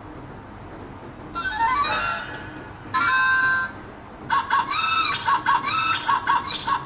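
Handheld electronic whack-a-mole button game playing its electronic sound effects: a rising run of beeps about a second and a half in, a held tone around three seconds, then a quick chirpy jingle from about four seconds on.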